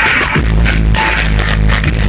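Loud electronic music with heavy deep bass, played through a car audio system's large array of speakers.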